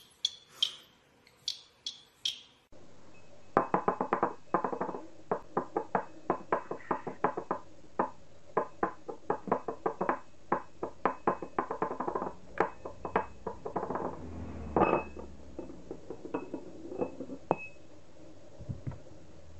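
A budgerigar pecking and tapping its beak on a ceramic cup: a long, rapid run of hollow clinks and knocks, with a few short high chirps near the end. Before it, a few sharp clicks.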